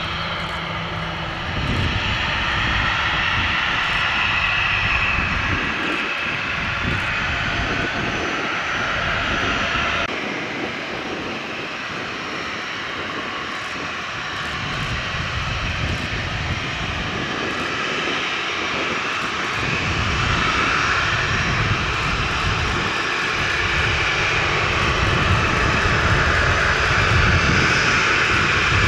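Jet airliner's engines running steadily at taxi power, a continuous whine over an uneven low rumble, getting somewhat louder toward the end.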